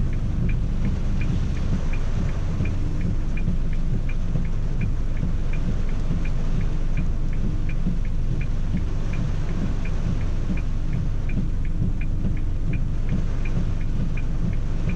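Rain falling on a car, heard from inside the cabin as a steady low rumble, with a light, even ticking about three times a second.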